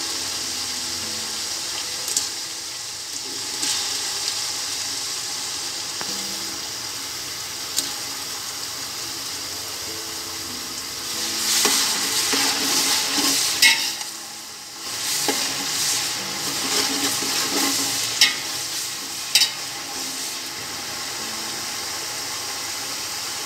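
Sliced onions and chopped tomatoes sizzling in hot oil in a metal pot, with a steady frying hiss. From about halfway a spoon stirs and scrapes through them, with a few sharp clinks of the spoon against the pot.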